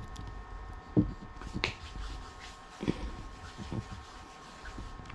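A few scattered sharp clicks and light taps from small parts of an opened tablet being handled by hand, the loudest about a second in, over a faint steady hum.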